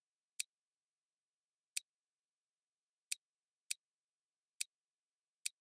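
Computer mouse clicking: six sharp single clicks at uneven intervals, about a second or so apart.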